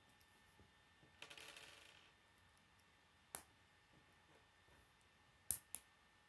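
Plastic K'nex pieces being handled and snapped together: a short rattle about a second in, a single sharp click past the middle, then two sharp clicks close together near the end, the loudest.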